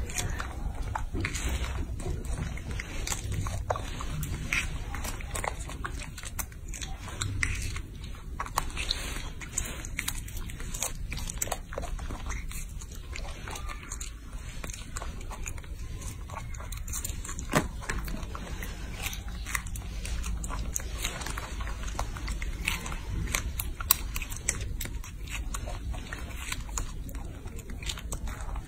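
Baby macaque biting into and chewing a strawberry held to its mouth: many irregular small clicks and smacks of eating.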